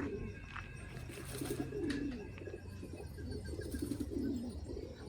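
Domestic pigeons cooing, several calls overlapping without a break.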